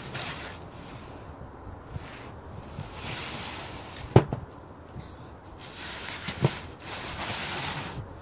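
Folding foam gymnastics mats being moved and laid out on a wooden deck: rustling and scraping, with two sharp knocks, the first about four seconds in and the loudest, the second about two seconds later.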